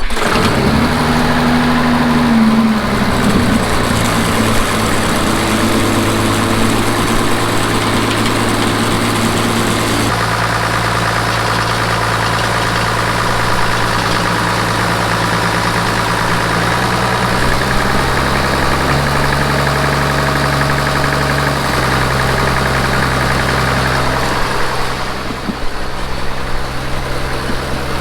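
Center-pivot irrigation engine firing up: it revs briefly as it catches, then settles into steady running, with small shifts in tone and a drop in level near the end.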